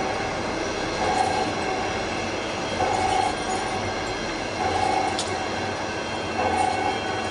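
Large metal lathe running with a big steel sleeve mounted. There is a steady machine noise, with a short mid-pitched squeal that repeats about every 1.7 seconds.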